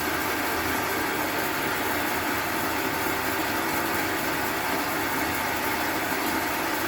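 Electric motor of a tool used to trim a pool cue's new tip, running steadily at speed with an even hum.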